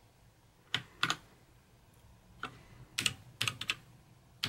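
Keys of an RK Royal Kludge RK61 mechanical keyboard clacking as a key combination is pressed again and again to cycle the backlight modes. The presses come as two clicks about a second in, one a little before the middle, and a quick run of four near the end.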